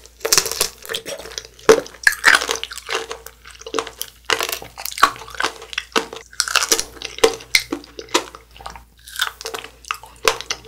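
Close-miked eating sounds of a white strawberry: wet, squishy bites and chewing in quick irregular bursts.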